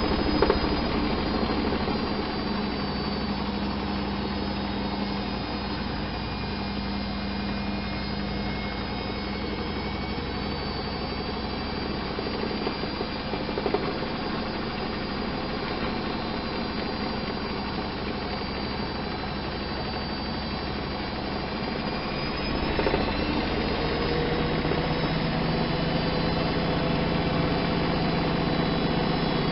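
Miele Softtronic W 204 washing machine running its wash program: a steady motor hum with the drum turning. About 23 s in the motor note changes and gets a little louder, with a slowly rising whine, and there are a few light knocks along the way.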